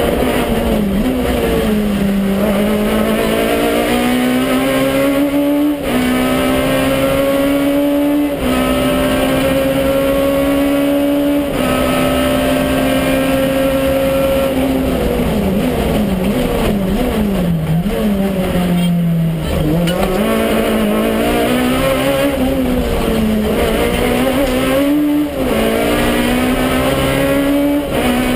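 Citroën Saxo Kit Car's 1.6-litre four-cylinder engine heard from inside the cabin, driven flat out. It revs hard up through the gears with three quick upshifts in the first dozen seconds. Through the middle it falls and climbs in short swings as the car brakes and downshifts for corners, then pulls up through the revs again near the end.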